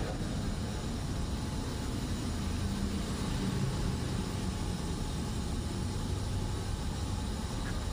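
Steady low mechanical rumble with an even hiss.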